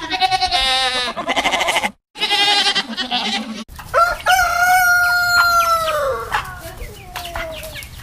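Rooster crowing: one long held call, about four seconds in, that falls away at the end. Before it come two shorter, wavering animal calls, each cut off abruptly.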